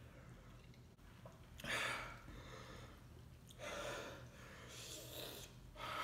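A man breathing hard, with three short, noisy huffs of breath about two seconds apart. His mouth is burning from 2x-spicy fire noodles.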